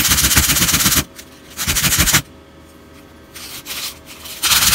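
A small wooden bait section is rubbed by hand on a sheet of sandpaper in quick back-and-forth strokes. The sanding comes in bursts, with a pause of about a second near the middle. The edge of the bait's joint is being sanded down to give the joint more wiggle room.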